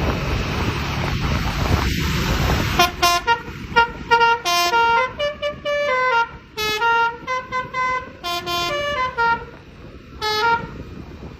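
Tour bus's basuri musical air horn playing a 'telolet' tune: a run of short and held notes stepping up and down in pitch, after about three seconds of rumbling engine and road noise.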